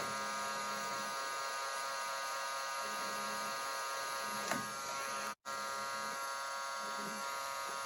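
Heat gun running, a steady motor whine over a rush of blown air, blowing on the alcohol-cleaned phone parts to dry them. It breaks off for an instant just past five seconds.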